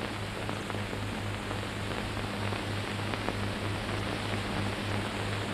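Steady hiss with a low, even hum: the background noise of an old optical film soundtrack.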